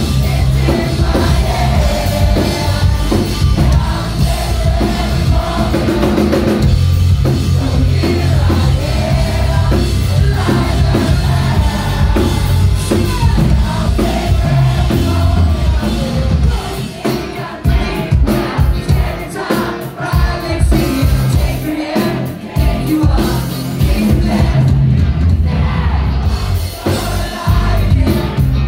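Rock band playing live, with sung vocals and a drum kit, recorded loud from the audience. About two-thirds of the way through, the steady full-band sound turns into choppy, stop-start hits for several seconds before the full band comes back.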